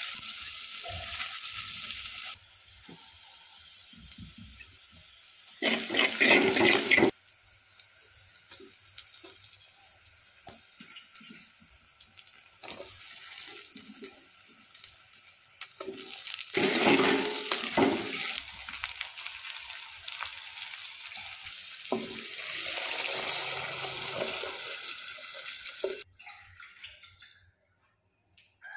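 Sliced onions sizzling in oil in a clay pot, then several separate bursts of water being poured in, with quieter stretches between; it falls almost silent near the end.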